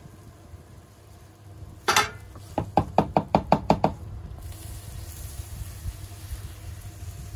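A metal batter ladle is knocked against the rim of a metal batter pot. There is one sharp knock about two seconds in, then a quick run of about eight ringing taps, roughly five a second, to shake the batter off the ladle.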